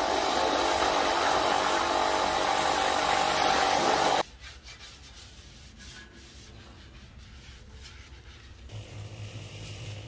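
Pressure washer jet spraying metal garden chairs: a steady hiss with a steady whine, cut off abruptly about four seconds in as the trigger is released. Faint scraping and light knocks follow. A low hum starts shortly before the end.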